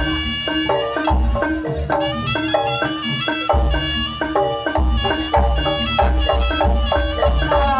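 Jaranan gamelan music: bright struck metallophone notes in a quick melodic run over deep drum beats.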